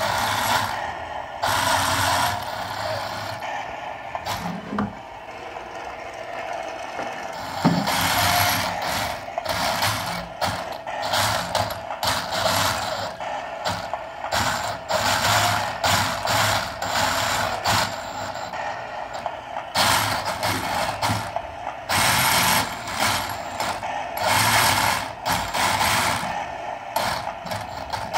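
Electric RC model tank running on the bench with an IBU 2 control board: bursts of mechanical whirring and clatter, a second or two each, come and go irregularly over a steady hum.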